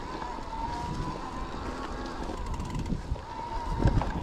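ToSeven DM01 mid-drive e-bike motor whining steadily under pedal assist as the bike rides over rough dirt, with wind buffeting the microphone. A few knocks from bumps in the trail near the end.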